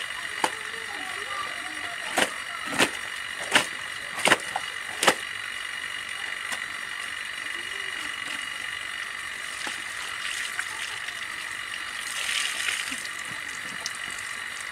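Wet clothes slapped down hard during hand-washing: five sharp smacks about two-thirds of a second apart, starting about two seconds in.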